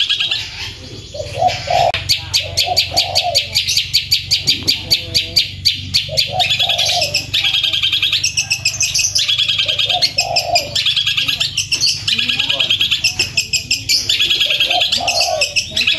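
Long-tailed shrike (cendet) singing loudly in rapid rolling runs of sharp high notes, many a second, broken now and then by short phrases of lower notes.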